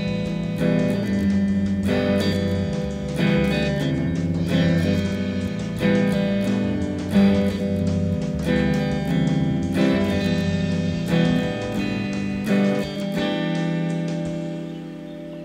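Guitar music, chords struck about once or twice a second, with a final chord held near the end that fades away.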